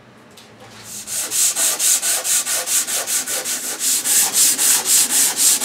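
Hand sanding of a teak-veneered desk top with 150-grit sandpaper on a sanding block: quick, even back-and-forth scratching strokes that start about a second in. The sanding runs at a 45-degree angle to the grain to cut off wood fibres raised by a water rinse.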